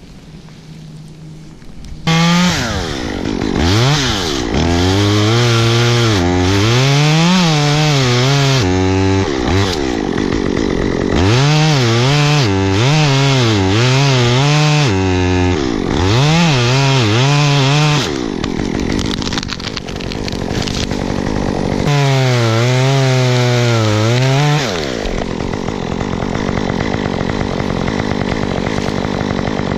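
Chainsaw comes in loud about two seconds in, its engine pitch repeatedly dipping and climbing back as it is worked through wood, then running more steadily near the end.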